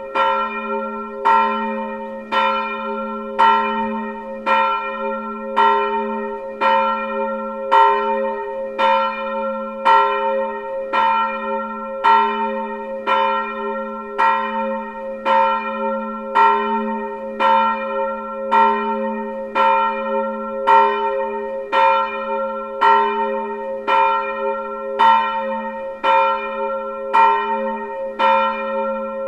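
Church bell 2, tuned to A-sharp (Ais1), swinging and ringing alone. It strikes evenly about once a second, and a low hum rings on between the strokes.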